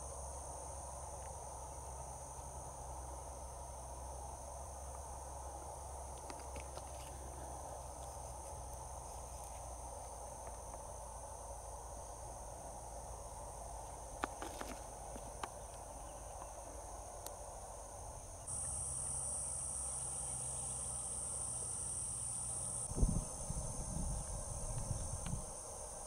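Steady high-pitched insect trill that gets louder about two-thirds of the way in. A few faint clicks come near the middle and some low thumps near the end.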